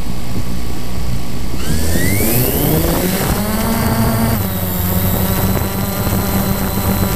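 DJI Phantom 2 quadcopter's four motors and propellers spinning up for takeoff, heard through the GoPro camera mounted on it: a loud whine rising in pitch from about a second and a half in, then settling into a steady buzzing hum as it climbs.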